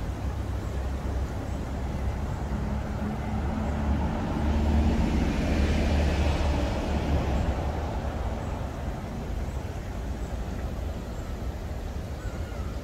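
Passing road traffic: a vehicle's engine and tyre noise swell to a peak about six seconds in and fade again, over a steady low city rumble.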